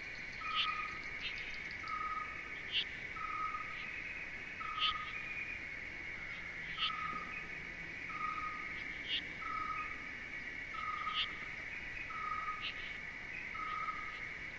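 Night-style nature ambience: insects keep up a steady chorus, an animal repeats a short single-note call about once a second, and sharp high chirps come every second or two.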